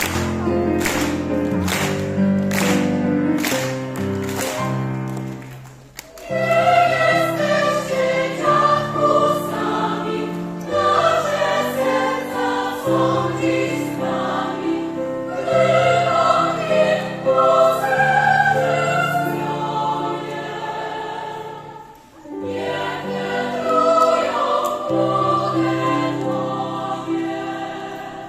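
Mixed folk choir singing a Polish folk song with instrumental accompaniment. It opens with about six seconds of accompaniment on a regular, evenly spaced beat, then the voices come in, with a short break near twenty-two seconds before the singing resumes.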